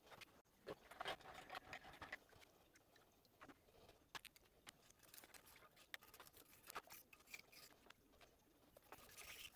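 Faint scratching and scattered light clicks, densest about a second in: a brush scrubbing loosened rust off a cast-iron engine block after electrolysis.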